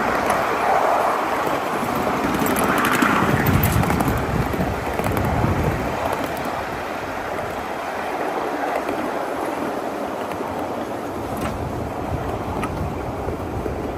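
1/8-scale ride-on miniature train running along the track: a steady noisy rumble, with wind buffeting the microphone and a few faint clicks.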